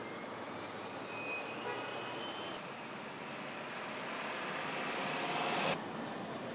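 City street traffic noise, a steady wash of passing vehicles. It swells gradually, then drops abruptly near the end to a quieter street hum.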